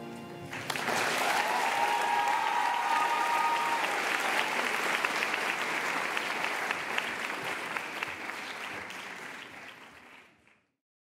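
Audience applauding as the music ends, with a cheer held for a couple of seconds about two seconds in. The applause fades out about ten seconds in.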